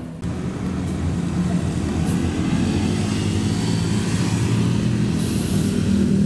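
Diesel locomotive engine running steadily, growing gradually louder, with a short high hiss about five seconds in.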